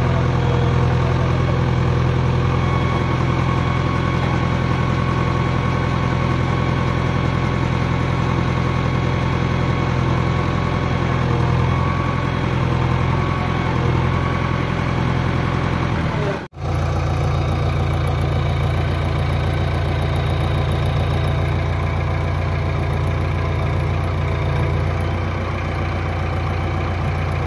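Diesel engine of a JCB backhoe loader running steadily at close range, while the machine works its bucket. The sound cuts out for an instant a little past halfway, then the engine carries on as before.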